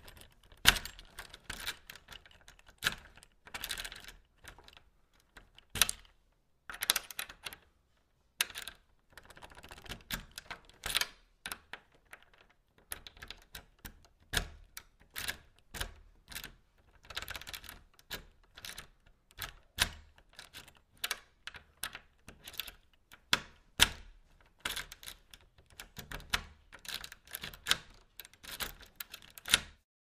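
Metal key worked in a lock over and over: sharp irregular clicks and rattles, with short scraping stretches as it slides in and turns.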